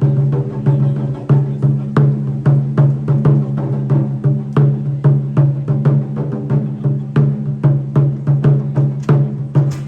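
Japanese taiko drums played in a fast, steady rhythm: sharp stick strikes, about three a second with quicker clicks between them, over a deep, sustained drum pulse.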